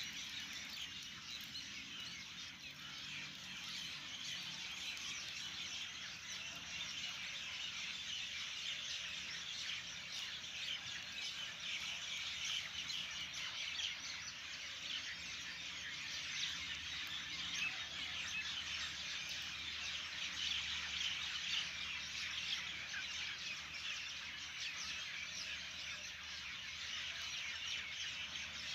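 A dense, steady outdoor chorus of many birds chirping and twittering at once.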